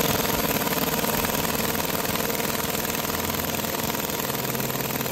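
Cordless impact wrench hammering steadily on a bolt on top of a diesel engine's head, a fast even rattle that starts abruptly.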